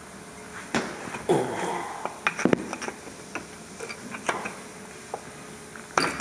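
Screwdriver wedged into a disc brake caliper, levering the inner brake pad back to collapse the caliper piston. Scattered metal clinks and knocks, with a short scraping sound about a second and a half in.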